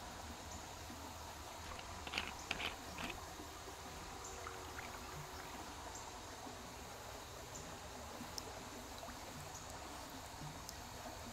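Quiet ambience of a small woodland stream, faint trickling water, with a few short sharp clicks about two to three seconds in.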